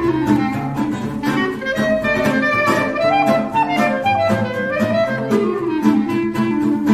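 Instrumental background music: a melody line that winds down and back up over a steady beat.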